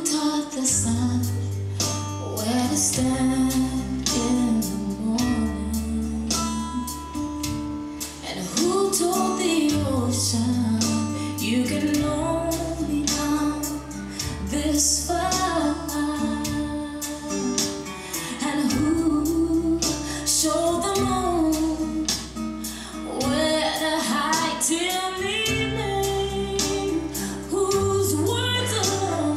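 Gospel song with a woman singing the lead over guitar and held bass notes.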